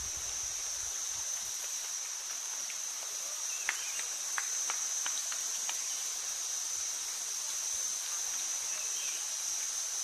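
A steady, high-pitched insect drone, with a handful of light clicks about four to six seconds in.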